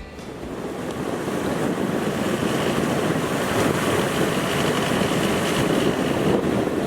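Wind buffeting the microphone over the wash of the sea aboard a sailboat, a steady rushing noise that swells up over the first second or two.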